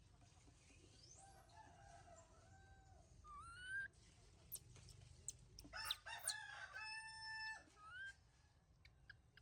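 Rooster crowing, faint, with shorter rising calls before it; the crow ends in one long held note that cuts off suddenly about three-quarters of the way in.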